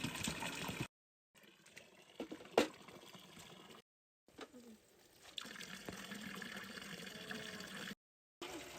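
Water running and splashing, in three short stretches broken by brief silences, with a sharp knock about two and a half seconds in.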